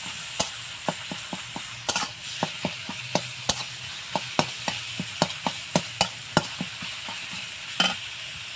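Flat metal spatula scraping and knocking against a metal kadai, about two to three strikes a second, as minced chicken paste is stirred and fried in hot oil, over a steady sizzle. The stirring stops shortly before the end while the sizzle goes on.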